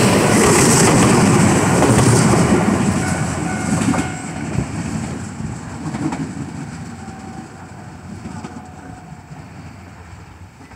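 Enshu Railway 2000-series electric train (set 2003) passing close by, its wheels clacking over rail joints, then receding and fading steadily away down the track.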